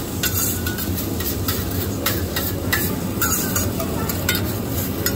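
Teppanyaki griddle sizzling with a steady roar, broken by repeated sharp metal clicks and scrapes of the chef's spatula on the hot plate.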